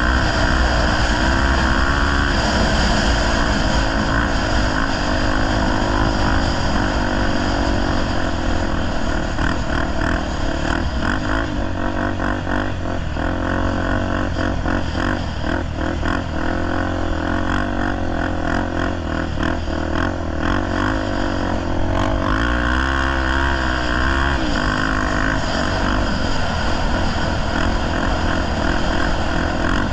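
Honda XR250 Tornado's single-cylinder four-stroke engine running as the motorcycle is ridden with its clutch cable cut, the engine note rising and falling, with a marked swing in pitch about two-thirds of the way through.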